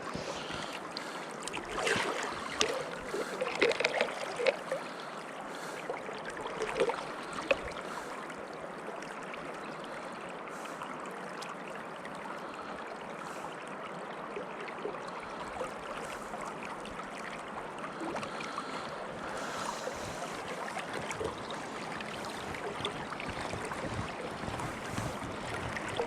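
River water rushing steadily, with a few louder irregular splashing or knocking sounds in the first third.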